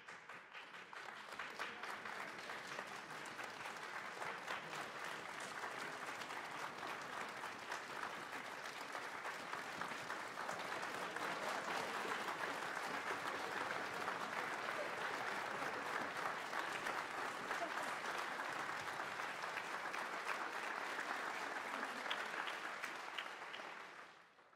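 Concert hall audience applauding, a dense steady clapping that builds over the first two seconds and dies away quickly near the end.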